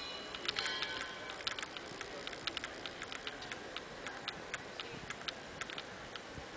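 Footsteps of many people walking on stone paving: irregular sharp clicks and taps of shoes and sandals, several a second. A brief high pitched sound rings out in the first second.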